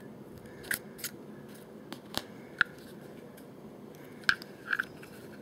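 Several sharp, irregular clicks and taps of a Kel-Tec PF-9 pistol's parts knocking together as its polymer grip frame is pushed onto the top assembly.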